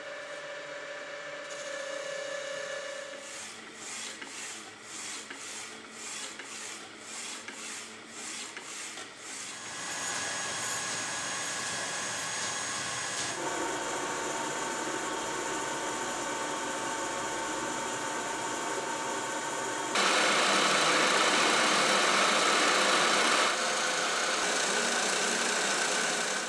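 CNC machine running and cutting metal, its sound changing every few seconds. There is a stretch of even pulses about two a second, then a steady whine, and about twenty seconds in a louder, harsher cut that eases near the end.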